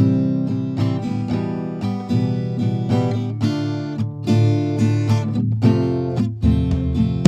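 Background music on acoustic guitar, with chords strummed and plucked in a steady rhythm.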